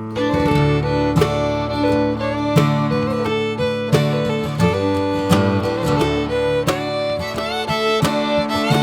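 Background music: acoustic guitar strumming with a fiddle playing a sliding melody over it, in a bluegrass/country style.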